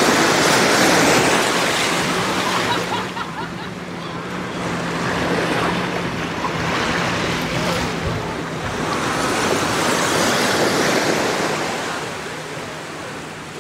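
Ocean surf: waves washing onto a beach, swelling and easing every few seconds, with a faint steady low hum beneath. It grows fainter near the end.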